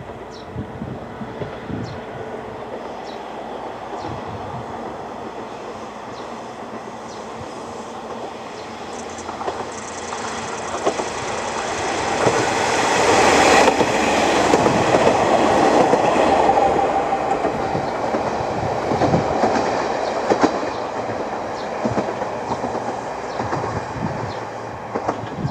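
The 'Aru Ressha' diesel sightseeing train approaching and passing: engine and wheel-on-rail noise build up to a peak about halfway through, then fade as it moves away.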